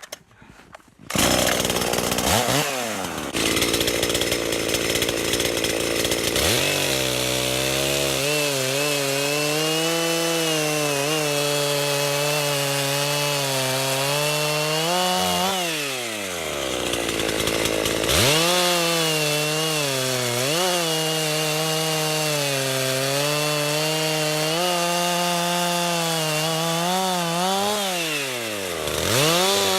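Two-stroke chainsaw running at high revs and cutting through a log with a hand-filed chain. It starts about a second in, and its engine note sags and picks back up about halfway through and again near the end. The chain cuts well, making chips rather than dust.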